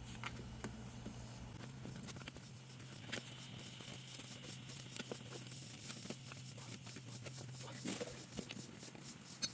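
Faint scattered clicks and short scrapes of hands fitting a transfer case shift cable and its wire retainer back into place, over a steady low hum.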